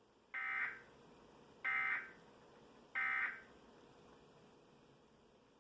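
Emergency Alert System end-of-message (EOM) data bursts: three short bursts of digital data tones about 1.3 seconds apart, the coded signal that tells decoders the alert has ended.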